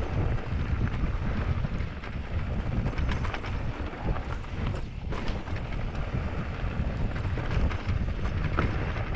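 Norco Sight VLT electric mountain bike ridden over rough dirt trail: a steady low rumble with frequent small knocks and rattles from the bike and tyres.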